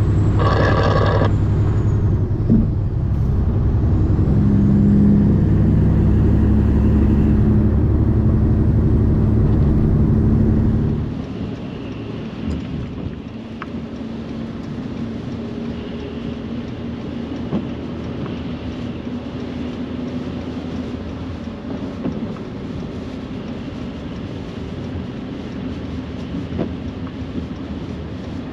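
A heavy truck's engine running inside the cab, a deep steady rumble with a whine that rises a little as it pulls ahead, with a brief higher-pitched sound about a second in. About eleven seconds in it cuts to quieter, steady road and tyre noise heard inside a car on a wet road.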